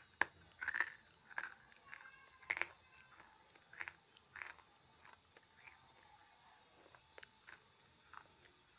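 Chunk of grey clay bitten off with a sharp snap, then chewed with crunching that grows sparser and fainter in the second half.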